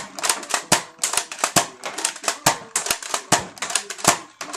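Rapid, irregular plastic clicking and clacking from a Nerf blaster being worked by hand, several clicks a second, starting abruptly.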